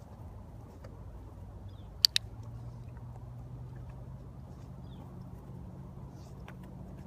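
Dog-training clicker sounding once about two seconds in: a sharp double click, over a steady low hum.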